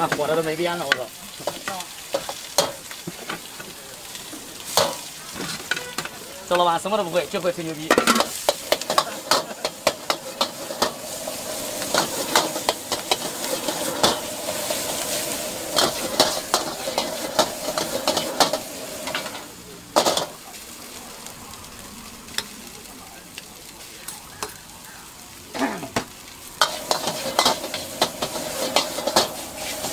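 Rice and green vegetables stir-fried in a wok: steady sizzling, with the metal ladle scraping and clanking against the wok in frequent, irregular sharp strikes.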